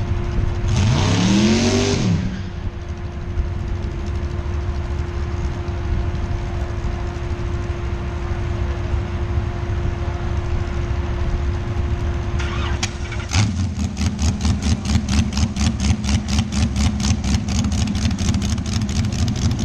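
Drag racing car engines running: one revs up and back down about a second in, then a steady engine sound holds. About 13 seconds in, a louder engine starts up and idles with a pulsing beat, about three or four pulses a second.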